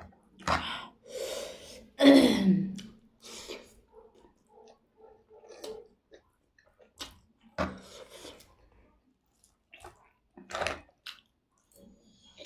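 Close-up eating sounds: a person biting, chewing and slurping in separate short bursts, the loudest about two seconds in.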